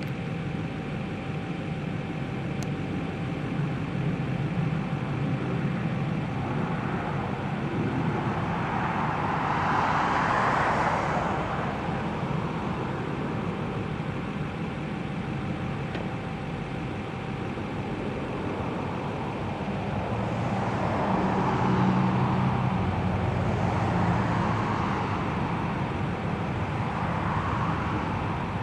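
BNSF diesel locomotives at the head of an approaching freight train, a steady low engine rumble that fills in as the train nears. A few swells of road traffic passing rise and fade over a couple of seconds each, about ten seconds in and three times near the end.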